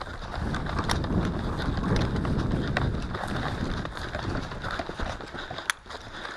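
Footsteps of a person running on the ground, with uneven thuds over a low rumble on the microphone, and one sharp click near the end.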